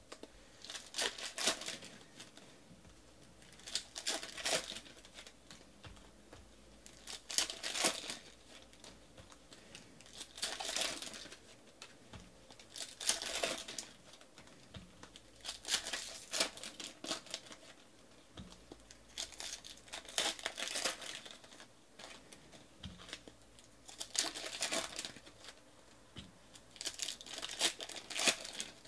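Foil trading-card pack wrappers being torn open and crinkled by hand, in about ten short crinkling bursts, one every two to three seconds.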